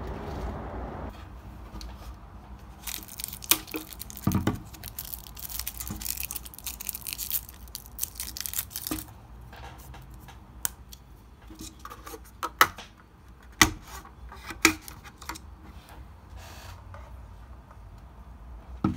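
Close handling noise: crinkling and tearing, as of packaging, with several sharp clicks and knocks later on. A steady hum stops about a second in.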